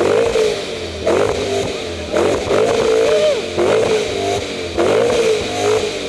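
BMW engine blipped repeatedly through a loud aftermarket quad-tip exhaust, about six short revs roughly once a second, each rising and dropping back.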